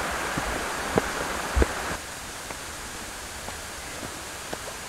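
Footsteps on stone trail steps: three knocks a little over half a second apart in the first two seconds, then fainter ticks, over a steady rushing background noise that drops in level about two seconds in.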